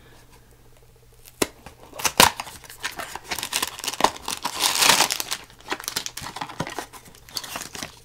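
Small thin-cardboard blind box being torn open by hand: a click and a couple of sharp snaps about two seconds in, then several seconds of ripping cardboard and crinkling packaging.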